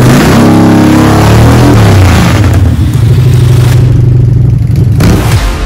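Loud Harley-Davidson V-twin through Vance & Hines Big Radius pipes with the baffles removed, revved up and back down about a second in, then running at a steady speed.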